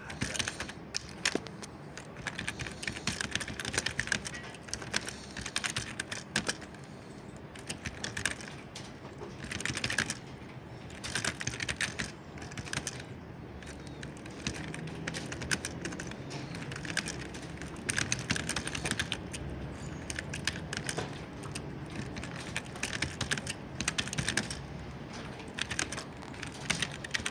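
Typing on a computer keyboard: quick runs of key clicks in bursts of a few seconds, broken by short pauses, over a steady low background hum.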